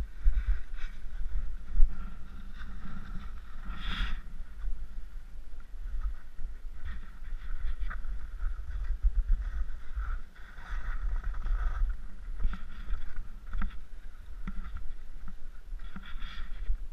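Skis sliding and scraping on firm, crusty snow in irregular swishing strokes, over a low wind rumble on the microphone. A sharp knock about four seconds in.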